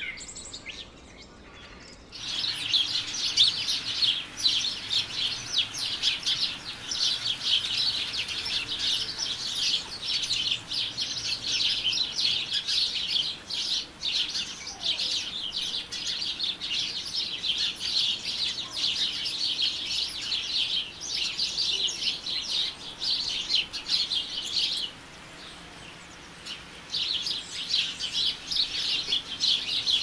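Many birds chirping and chattering together in a dense, continuous chorus. It starts about two seconds in and drops away briefly for a couple of seconds near the end.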